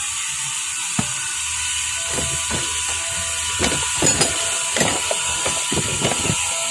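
A tool clicking and scraping against a motorcycle front wheel hub as its oil seal is pried out: a single click about a second in, then a run of irregular clicks and scrapes from about two seconds in. A steady hiss runs underneath.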